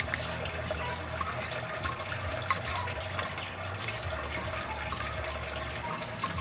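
Raw chicken feet being mixed by hand in a soy sauce and calamansi marinade: continuous wet squishing and sloshing, dotted with small clicks.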